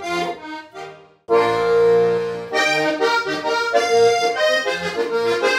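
Button accordion playing a vallenato-style interlude between sung verses: a short phrase, a sudden break about a second in, then a long held chord followed by quick melody notes over a steady bass beat.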